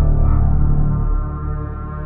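Dark, ambient film-score music: sustained tones over a loud, deep low drone that eases slightly about a second in.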